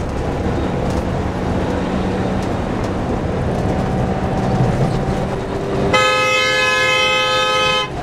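A coach's horn sounded in one long blast of about two seconds, starting about six seconds in and cutting off sharply, over the coach engine and road noise heard from inside the cab.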